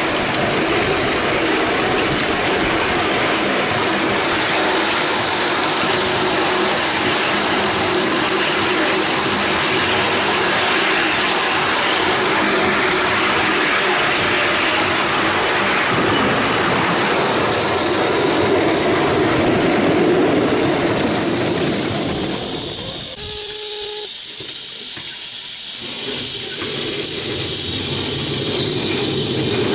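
A 5-inch gauge Duchess Class live steam locomotive running along the track: a steady, loud rushing hiss of steam and running noise. About three quarters of the way through, the low rush drops away for a couple of seconds, then comes back.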